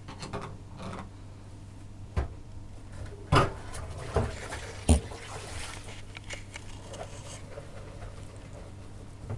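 A Cavalier King Charles Spaniel making a few short snorting and mouth noises, spaced irregularly, the loudest about three and a half and five seconds in.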